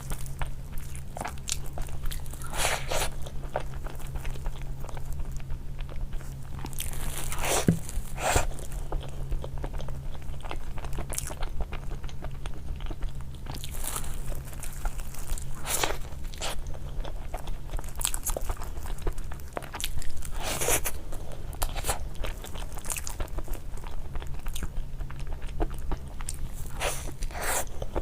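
A person eating crunchy food close to the microphone: crisp bites and crunches every second or so, with chewing in between, over a steady low hum.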